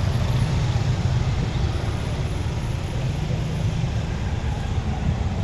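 Steady low rumble of motor vehicles idling and creeping in a traffic jam, with no horns sounding.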